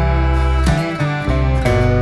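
Background music led by guitar, with plucked notes changing about once a second.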